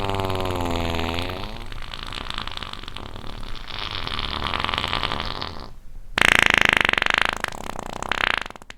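Long fake fart from a fart toy. It opens as a pitched, drawn-out toot that sags a little in pitch, breaks into a raspy sputter, and then gives a louder buzzy blast about six seconds in before tailing off.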